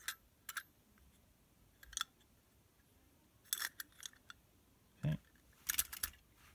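Scattered light clicks and taps of a die-cast metal Dinky Toys Daimler ambulance being turned over in the fingers and set down among other metal toy cars, with a soft thump about five seconds in and a quick cluster of clicks just after.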